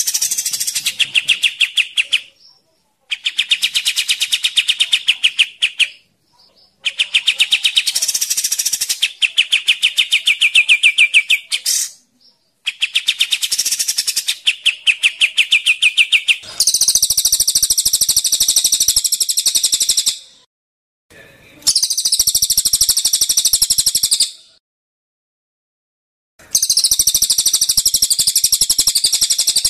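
Cage songbirds, a cililin and a kapas tembak, singing loudly in turns. The first part is fast rattling trills in bursts of two to four seconds with short breaks. Past the middle the song changes to a higher, buzzier one, heard in three bursts of three to four seconds.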